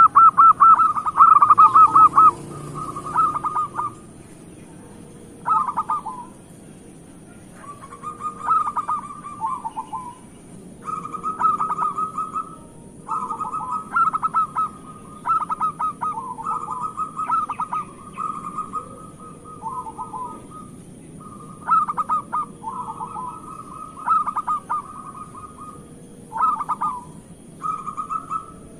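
Zebra dove (perkutut) cooing: a run of rapid, rippling trilled phrases, each about a second long, repeated every second or two, loudest in the first couple of seconds.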